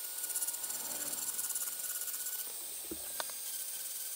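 High-speed rotary tool spinning a fluted carbide burr as it grinds the bowl of a motorcycle cylinder head's intake port, giving a thin, high-pitched buzzing whine with a fast flutter. There is a single sharp click about three seconds in.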